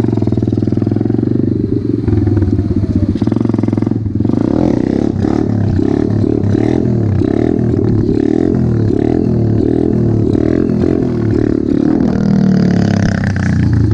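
Apollo RFZ 125 pit bike's small four-stroke engine running under the rider, its pitch rising and falling over and over as the throttle is blipped and rolled on and off.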